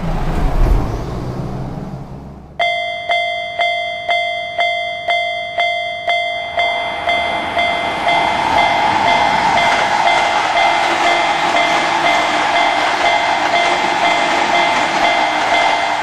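A passing truck's low engine rumble, then a Japanese level-crossing bell starts ringing, about two strikes a second, about two and a half seconds in. From about six seconds in, a passing electric train's running noise rises under the ringing, which keeps on to the end.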